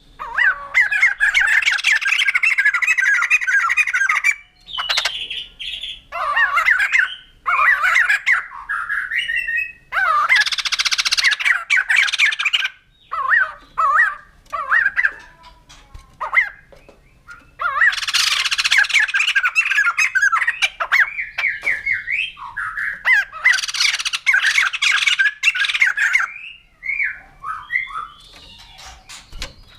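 White-crested laughingthrush calling: loud outbursts of rapid, chattering, laugh-like notes lasting a few seconds each, with shorter phrases and brief pauses between them.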